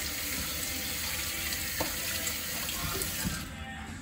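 Kitchen tap running into the sink as a peeled onion is rinsed under it; the steady flow stops near the end.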